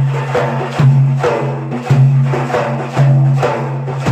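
Instrumental music accompanying Iraqi 'ataba folk singing: a held low drone with a melody moving above it and percussion strikes about twice a second.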